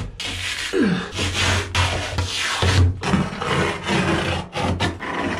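Old vinyl (faux-leather) lining and its foam backing being torn and scraped by hand off a boat's plywood cabin ceiling: a run of rasping rips with short breaks between pulls.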